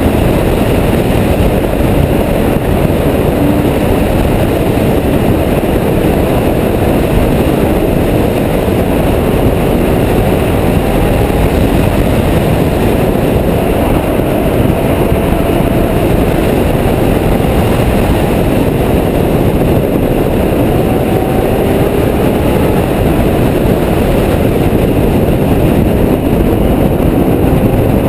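Ferrari F12berlinetta's V12 at speed, its engine note rising again and again through the gears, largely buried under a loud, steady rush of wind and road noise on an outside-mounted microphone.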